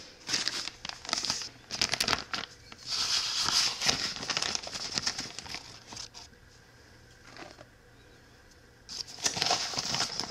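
Plastic bag of glutinous rice flour crinkling as it is handled over a mixing bowl, in several bursts, with a quiet spell of about three seconds near the end before the crinkling starts again.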